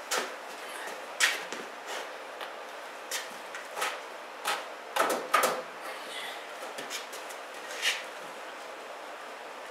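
The steel mounting bar of a Harbor Freight 61179 mini tire changer clunking and scraping against the wheel rim and centre post as it is levered around to force the tire bead onto the rim. It makes a run of short, irregular knocks and scrapes, the loudest cluster about five seconds in, dying away about eight seconds in.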